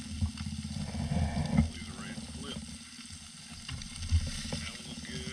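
Striped bass fillets frying and sizzling in a thin metal toaster-oven pan over a portable stove, with a utensil knocking and scraping against the pan, loudest about a second and a half in and again about four seconds in.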